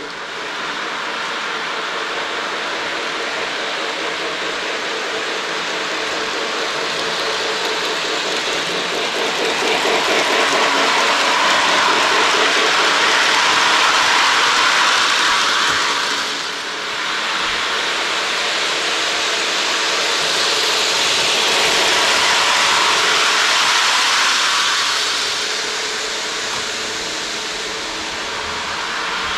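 Lionel model train running along its track, the wheels rumbling on the rails. The sound swells as the train comes close, dips briefly just past the middle, swells again, then fades near the end.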